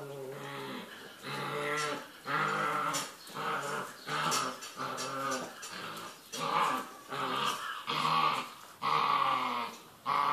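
Puppies growling in play as they tug at a plastic ball between them. The growls come in short bursts about once a second and grow louder after the first couple of seconds.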